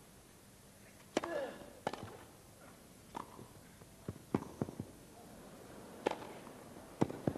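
Tennis rally on a grass court: racket strikes and ball bounces come as about nine sharp pops, unevenly spaced, starting about a second in.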